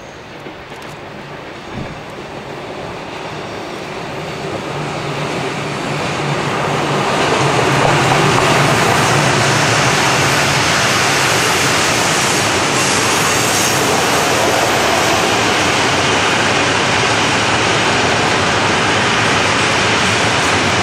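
An electric-hauled freight train of open wagons passing close by. Its noise grows louder over the first several seconds as the head of the train comes near, then holds as a steady rolling noise of wheels and wagons on the rails.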